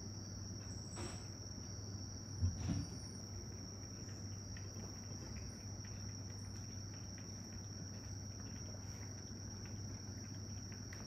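Steady high-pitched insect trill held without a break, over a low steady hum. Two soft knocks about one and two and a half seconds in.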